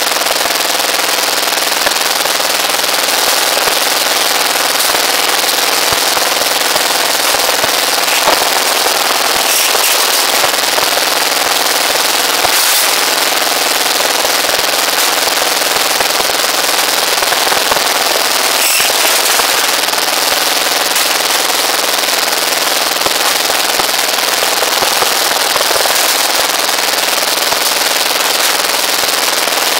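Small engine driving a rebar bending machine, running steadily and loudly, with a few sharp knocks of steel bars being bent and handled.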